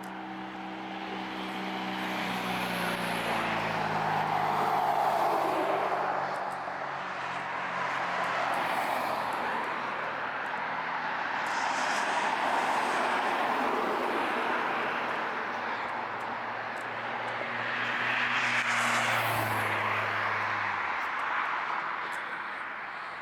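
Road traffic passing on a city street: the tyre-and-engine noise of vehicles swells and fades three times. Near the start an engine hum slides down in pitch as a vehicle goes by, and another engine hum is heard briefly about three-quarters of the way through.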